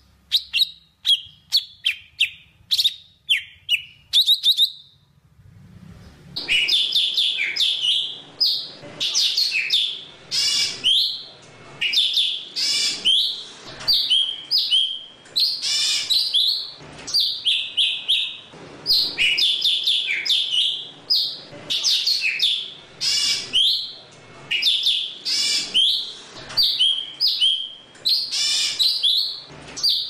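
Golden-fronted leafbird singing to call its flock. For the first few seconds it gives a run of short, sharp, separate notes; after a brief pause it breaks into a fast, continuous, varied warbling of whistles and chatters.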